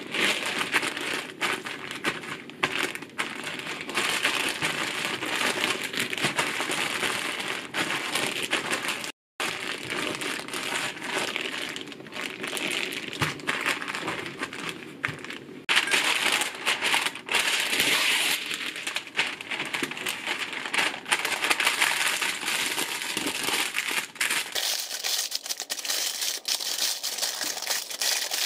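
Plastic zip-top bag crinkling and rustling as a crumbly cereal mixture moistened with cream is squeezed and kneaded inside it by hand. Toward the end the sound thins to a lighter rustle.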